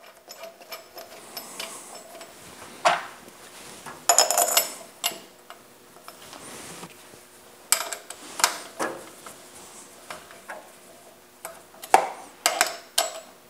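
Steel socket head cap screws being set into and driven down through a thick aluminium block: scattered metallic clinks and clicks, some with a brief ring, and a quick run of clicks near the end as a hand driver turns them.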